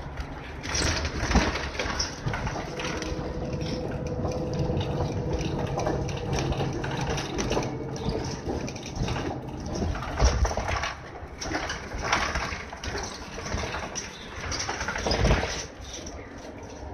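Hino Blue Ribbon City Hybrid bus under way, heard from inside: a steady drivetrain hum over road noise and body rattles, with louder bumps about a second in, about ten seconds in and near the end.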